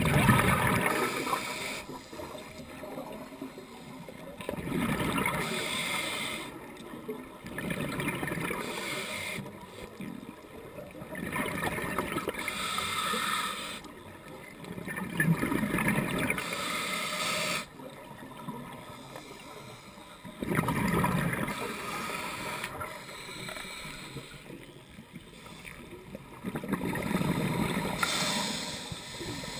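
Scuba diver's own breathing through a regulator, recorded underwater: loud rushes of exhaled bubbles about every four seconds, with quieter stretches between them.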